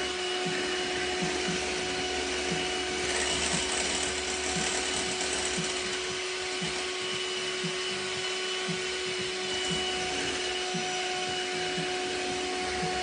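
Electric hand mixer running at a steady speed, its beaters whipping a thick ice cream base in a glass bowl: a constant motor whine with a light tick about twice a second.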